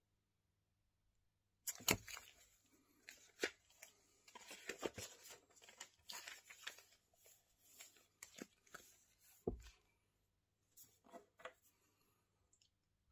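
Paper pages of a spiral-bound notebook being flipped and handled: a busy run of rustles and crisp paper snaps starting just under two seconds in and dying away at about ten seconds, with a few soft rustles after that.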